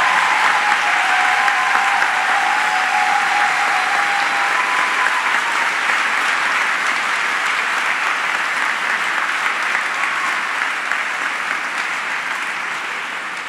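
Audience applauding, a dense, steady clapping that slowly fades toward the end.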